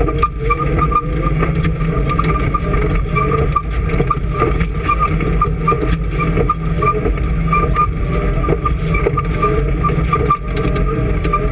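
Off-road desert race vehicle's engine running steadily, with frequent clicks and rattles over the top.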